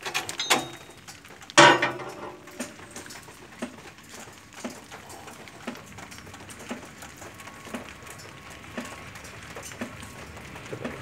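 Wrench clinking on the metal of an engine's belt tensioner as its mounting bolt is worked loose: a few clicks, a loud ringing clank about one and a half seconds in, then faint regular ticks about once a second.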